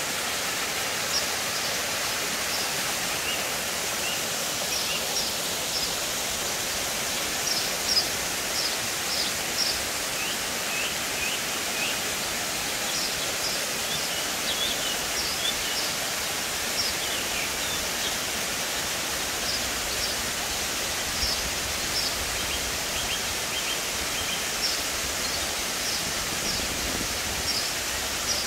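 Mountain waterfall cascading over granite rock ledges, a steady rush of water. Small birds chirp in short, repeated high calls throughout.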